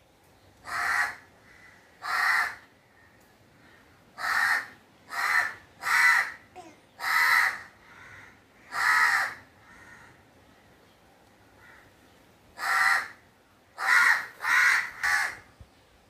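Crow cawing: about eleven harsh caws in loose runs. There are two single caws, then three in quick succession, then two longer ones. After a pause of a few seconds comes a final quick run of four.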